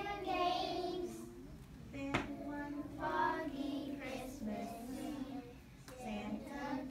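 A class of young children singing a song together in unison, with a sharp click about two seconds in and another near the end.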